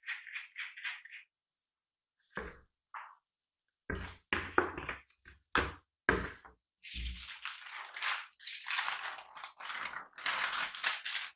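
A plastic spatula rubbing cocoa lumps through a plastic sieve's mesh in quick short strokes, then a series of knocks and thumps as the sieve is handled and knocked, then the dry rustling of a paper sheet being lifted and folded to pour the sifted flour and cocoa.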